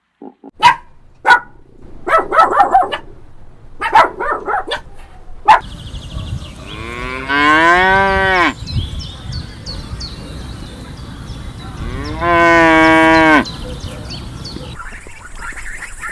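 Cow mooing twice, two long calls of about one and a half seconds each, the first bending in pitch and the second steadier. Before them come several short, sharp calls.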